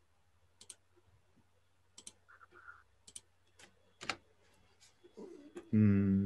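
Several sharp, scattered clicks of a computer mouse, spread a second or so apart. A person's voice starts near the end.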